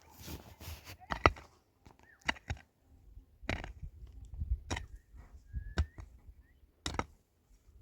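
Irregular sharp knocks, about seven of them roughly a second apart, over a faint low rumble.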